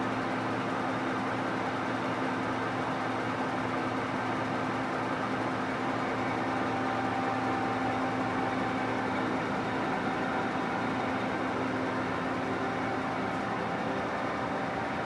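Steady machinery hum with a few faint, unchanging tones running through it.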